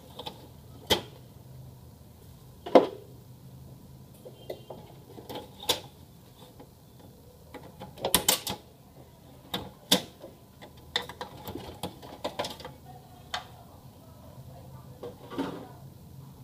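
Plastic casing parts of an HP LaserJet M1132 printer clicking and knocking irregularly as it is taken apart by hand, with a quick clatter of several knocks about eight seconds in.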